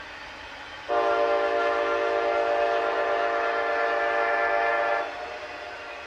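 Diesel locomotive air horn sounding one steady blast of about four seconds, starting and stopping abruptly, over the rolling noise of a passing double-stack container train.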